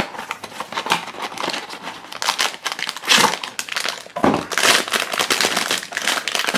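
Cardboard blind box flaps being opened, then the foil blind bag inside crinkling loudly as it is slid out and pulled open by hand, in irregular clusters.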